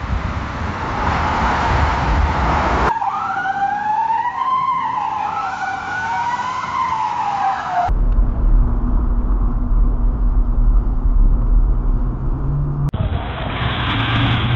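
A string of separate car sound effects cut hard together. First a car rumbles, then a wavering high-pitched squeal like screeching tyres lasts about five seconds. Then a car engine runs with a steady low drone, and a last rumbling clip starts near the end.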